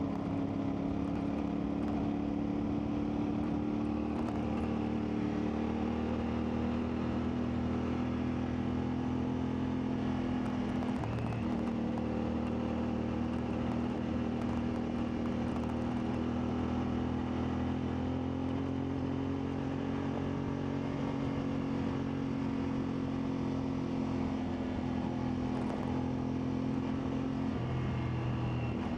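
CFMoto 450MT's parallel-twin engine running at steady moderate revs while riding. About eleven seconds in the note breaks briefly and comes back slightly lower, and it shifts again near the end.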